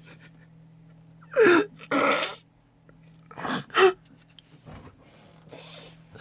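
A young man sneezing in a fit. About a second and a half in, a gasping in-breath runs straight into a sneeze, and a second sneeze follows about two seconds later.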